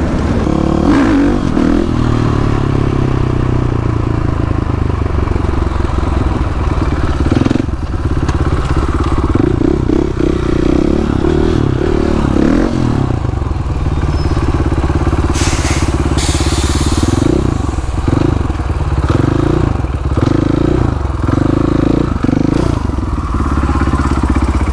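Supermoto motorcycle engine running while riding, its note rising and falling with the throttle.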